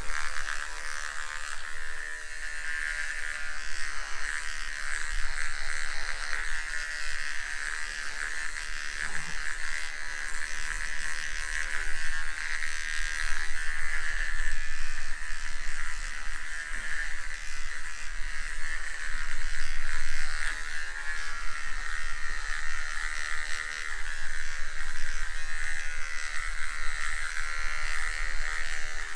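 Electric hair clipper buzzing steadily as it is run over a shaved scalp, cutting close stubble, its loudness rising and falling as it presses against and lifts off the head.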